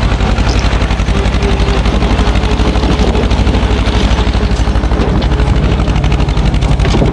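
SAME tractor's diesel engine running hard with a fast, even chug, straining to pull a trailer heavily loaded with river stones out of loose riverbed gravel.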